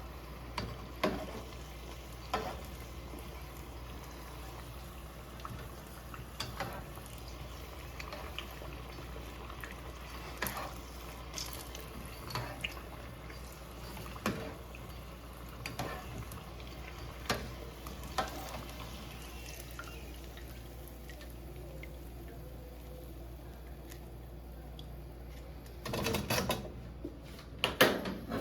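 Kitchen work sounds: scattered clicks and taps of utensils against cookware every second or two over a steady low hiss, with a busier clatter near the end.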